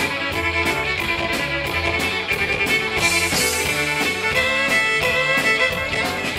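A live country band plays an instrumental passage: electric guitars and bass over a steady drum beat. About four seconds in, a lead line slides between notes.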